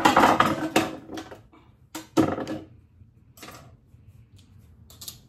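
Kitchenware being handled on a stone countertop: a short run of clattering knocks and scrapes in the first second, then a few separate knocks spread through the rest.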